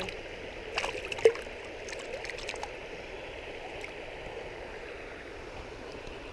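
Shallow stream running over rocks, a steady rush of water. A few brief clicks sound over it in the first second and a half, the loudest about a second in.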